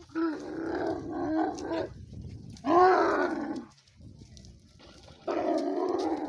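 Dromedary camels bellowing in a fight: three loud, drawn-out calls, the middle one the loudest.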